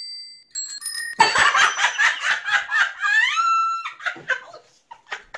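A bicycle bell rings twice, a sound effect, then two women burst into loud laughter, one laugh rising into a held high shriek about three seconds in, trailing off into short snickers.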